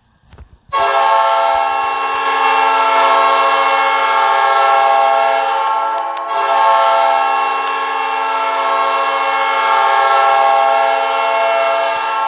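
Manitoba Moose hockey goal horn: an air horn sounding a chord of several tones in one long, loud blast starting just under a second in, with a brief dip a little past halfway.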